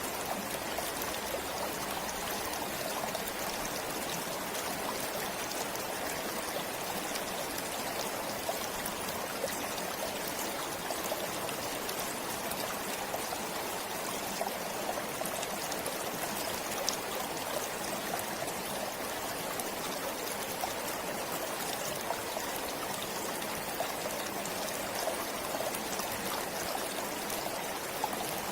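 Forest stream flowing steadily, water babbling and trickling with many small splashes.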